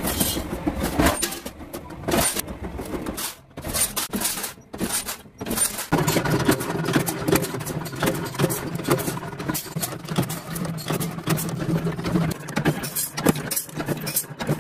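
Sheet-metal shear and power press working steel sheet: sharp metal knocks and clanks, then from about six seconds in a steady motor hum under repeated clatter.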